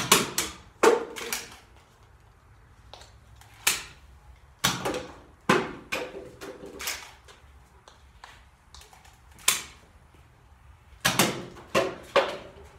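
A Nerf foam-dart blaster firing repeatedly, with darts hitting plastic water bottles and the bottles knocking over onto the table: a string of sharp clacks and knocks in uneven clusters, some with a short hollow ring.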